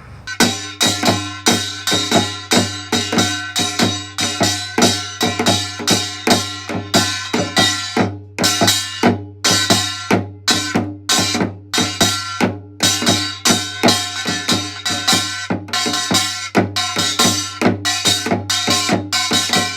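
Percussion-driven music with a fast, steady drum beat over a sustained low bass tone.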